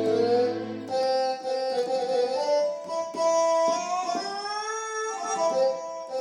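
Yamaha PSR-I500 keyboard playing a melody on one of its Indian instrument voices. The notes slide smoothly upward in pitch past the middle.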